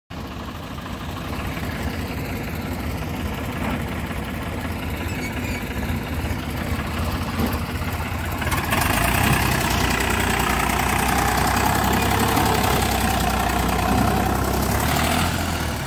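Diesel tractor engine of a 2001 Eicher 485 running and working hard to drag a loaded trolley through wet mud. About halfway through the engine note rises and gets louder as it pulls under load, then eases just before the end.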